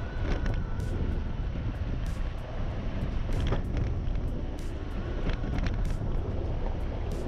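4x4 vehicle driving on a dirt road: steady low engine and tyre rumble, with scattered clicks and knocks from gravel and rattles.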